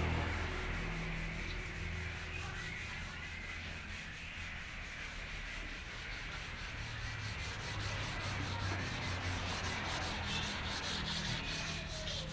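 Steady sanding or rubbing on a car's bodywork, a continuous scraping with a low hum underneath.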